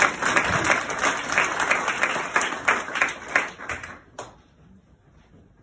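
Audience applauding, dying away a little before four seconds in; a single sharp click follows just after.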